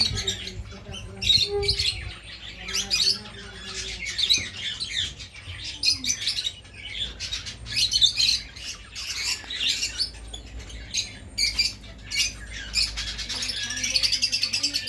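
Birds chirping and squawking in a garden: many short, high calls one after another, turning into a quick, even run of chirps near the end.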